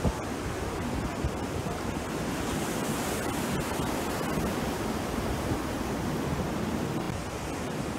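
Sea surf breaking and washing up a beach in a rough sea: a steady rushing of waves.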